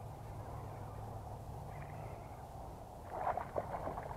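A hooked small bass splashing and thrashing at the water's surface as it is reeled in. A quick run of splashes starts about three seconds in, over a steady low outdoor rumble.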